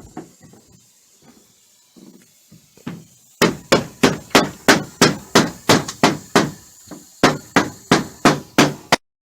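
Hammer blows: a few light taps, then a fast, even series of about seventeen hard strikes, about three a second, with a short break near the end.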